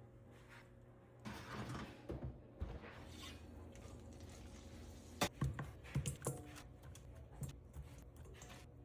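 Handling noises over a steady low hum: a stretch of rustling about a second in, then a sharp click followed by a few short knocks and clatters a little past the middle.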